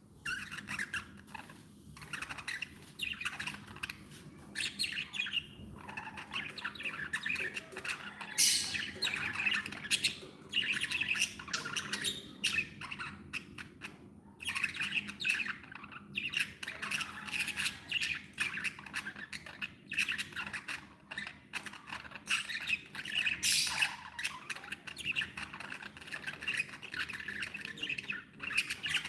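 Budgerigars chattering and chirping in a continuous dense stream of short calls, with a couple of louder, sharper calls standing out about a third of the way in and again near the end.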